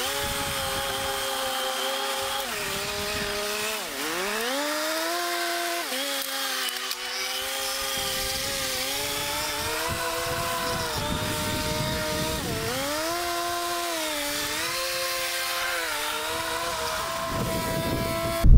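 Kubota riding lawn mower's engine running while mowing grass, its pitch dipping and picking back up several times, most sharply about four seconds in.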